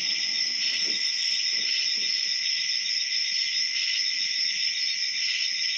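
Crickets chirping in a steady, unbroken chorus.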